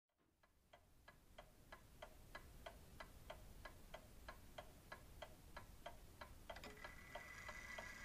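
Pendulum movement of an 1885 E. Ingraham Cathedral Gong mantel clock ticking faintly and evenly, about three ticks a second. Near the end, extra clicks and a faint steady high tone join in.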